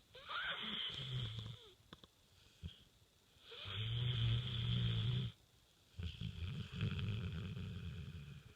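Sleeping dog snoring loudly in deep sleep: three drawn-out snores, each lasting a second or two, with short quiet pauses between breaths.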